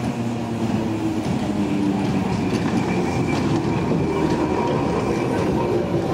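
Vintage electric tram running along its track, its wheels rumbling over the rails with faint clicks and a thin, steady high whine.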